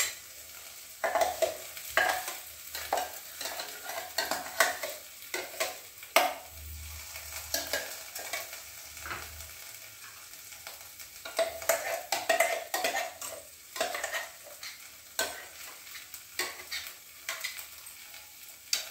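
Metal spoon scraping and clinking against a steel bowl and kadhai as almond paste goes into masala frying in oil, with irregular clicks throughout over a steady sizzle.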